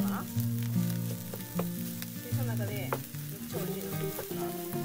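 Fried rice of cold rice, egg and bacon sizzling in a nonstick frying pan as a wooden spatula stirs it, with a few sharp clicks of the spatula on the pan; the rice is being tossed to drive off its moisture. Under it run steady low tones that change pitch every half second or so.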